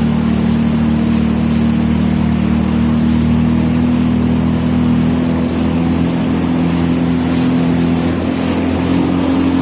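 Jet ski engine running steadily at a constant pitch while under way, with a steady rush of noise over it.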